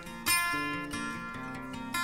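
Background music led by acoustic guitar, with a new chord struck about a quarter second in and left to ring.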